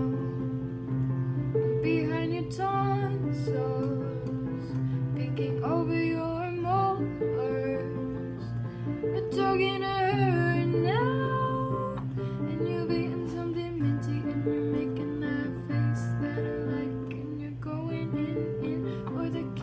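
A guitar played with plucked notes, and a woman's voice singing a couple of short gliding phrases, about six seconds in and again around ten seconds.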